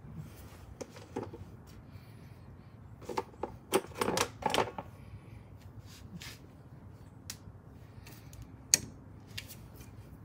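Scattered clicks, taps and rubbing as a rubber breather hose is handled and pushed onto its fitting, with a cluster of louder knocks about three to five seconds in and one sharp click near the end.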